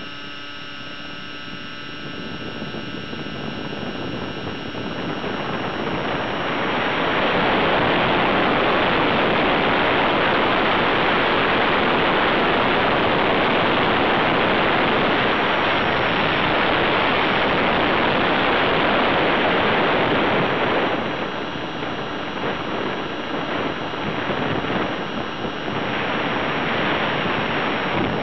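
Align 600-class radio-controlled helicopter heard from its onboard microphone: a steady whine at first, then from about six seconds in a loud rushing noise of wind on the microphone covers it for about fifteen seconds before easing and fluttering near the end.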